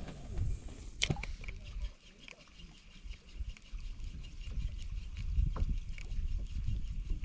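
Wind buffeting the microphone in an uneven low rumble that grows stronger in the second half, with a sharp click about a second in and a few lighter clicks later from the spinning reel and rod being handled.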